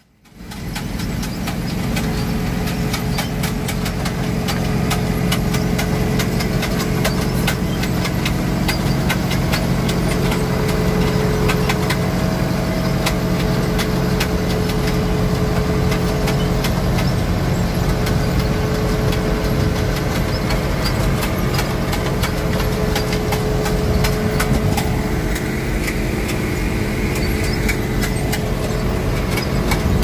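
Diesel engines of a heavy truck and a gravel shoulder-spreading rig running steadily at work, coming up about a second in, with a constant patter of small clicks from the gravel spilling through the spreader box.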